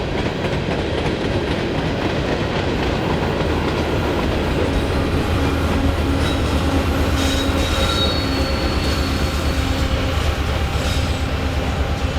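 Freight cars of a long manifest train rolling past with a loud, steady rumble of wheels on rail. Thin, high wheel squeals come and go in the middle, over a low hum that sets in a few seconds in.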